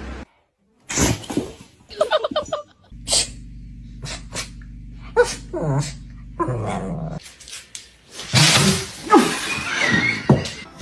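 Dogs making short vocal sounds, yips, whines and growly noises, in a string of brief separate bursts with short gaps between.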